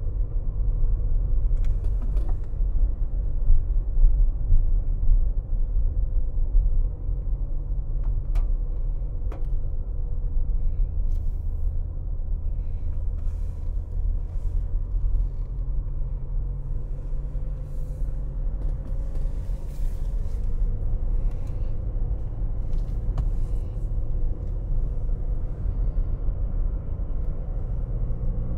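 Steady low road and engine rumble inside a car driving slowly on wet roads, with a faint steady hum and scattered light ticks.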